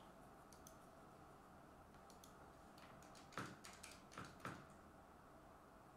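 Computer mouse clicking in a quiet room: a few faint clicks, then a quick run of about four louder clicks about three and a half seconds in.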